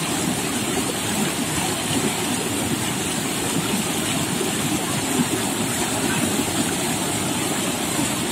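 Close, steady rush of water pouring down a narrow rock chute and over a small drop.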